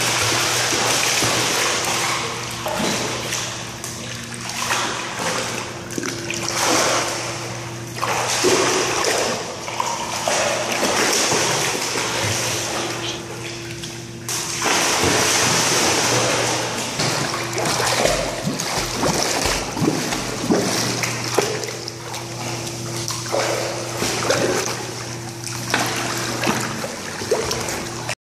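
A dog swimming in a pool, with repeated surges of splashing and sloshing water. A steady low hum runs underneath.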